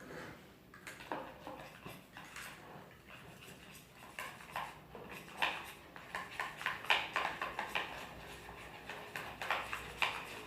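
Spoons stirring and scraping a glue-and-paint slime mixture in containers: a string of light clicks, taps and scrapes, busier in the second half.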